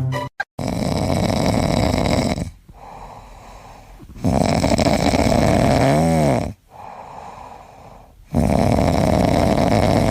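Loud snoring: three long snores about four seconds apart, the second ending in a brief tone that rises and falls in pitch.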